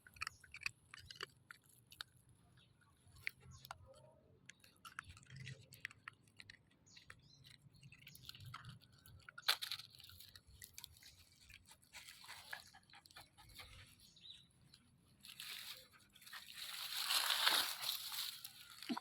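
Crunching and chewing sounds with many short irregular clicks and crackles, then a longer, louder noisy rush about three seconds before the end.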